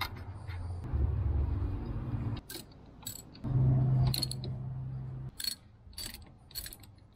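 Front brake caliper bolts being run in with a ratchet: two spells of steady mechanical running, each about a second and a half, with sharp metal clicks between and after.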